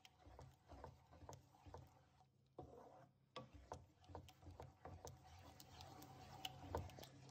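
Faint irregular clicks and scrapes of a slotted spatula against the pan as a thick yogurt masala curry is stirred, over a steady low hum.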